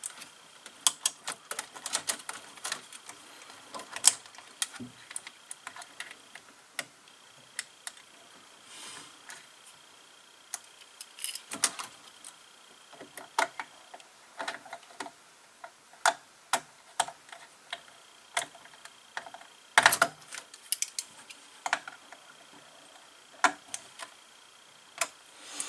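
A small screwdriver and a wire end clicking and ticking irregularly against a screw-terminal block on a CNC controller board as a wire is fastened in, with scattered sharp clicks and a few louder ones.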